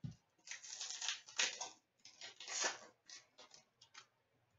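Upper Deck hockey trading cards rustling and sliding against each other in the hands as they are sorted and laid down, several short swishes followed by a few light taps near the end.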